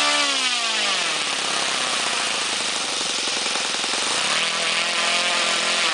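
Saito FG-20 single-cylinder four-stroke gasoline model-aircraft engine turning a 16x6 propeller. It is throttled back from high speed to idle over about a second, idles steadily, then is brought up to a mid-range speed about four seconds in. It is on a test run after a factory repair for rough mid-range running, which the owner thinks may now be cured.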